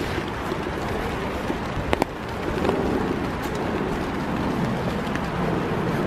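Steady rain falling in the forest with wind buffeting the microphone as a low rumble under the hiss, and a sharp tap about two seconds in.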